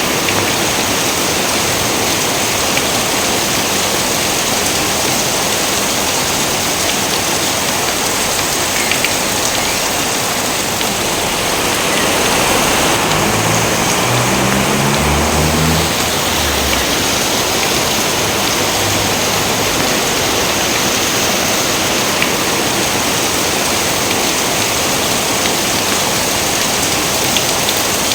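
Steady heavy rain pouring in an even hiss, with a brief low rumble swelling around the middle.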